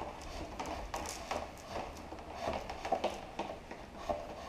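Flexible plastic tubing being handled and fed into a plastic solution tank: irregular light rubbing, scraping and small clicks and taps.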